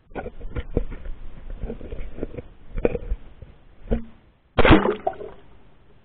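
Pool water splashing and knocking against a 360-degree camera at the surface, in a run of irregular knocks and sloshes. About two-thirds through comes a louder splash as the camera goes under.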